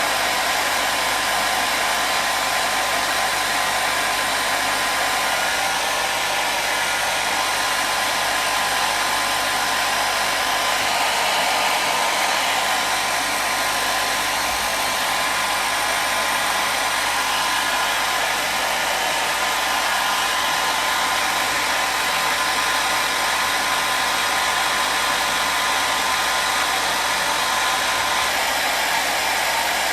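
Hand-held hair dryer running continuously at a steady speed: an even blowing hiss with a faint steady whine near 1 kHz.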